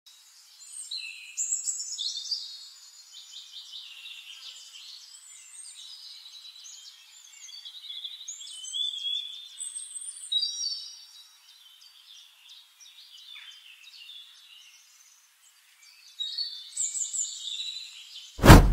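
Several birds chirping and singing in overlapping high trills and calls. Right at the end, one sudden loud hit cuts in.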